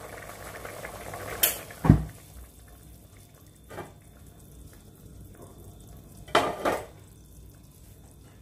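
Pot of curry simmering with a steady bubbling that dies down after two sharp clacks about two seconds in, as the gas stove is turned off. A metal ladle then knocks against the metal pot once, and clatters against it more briefly near the end.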